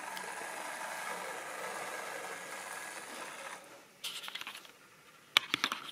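Model railway locomotive running along the track, a steady whirr of its small electric motor and wheels on the rails that stops about three and a half seconds in. Two short bursts of clicking follow.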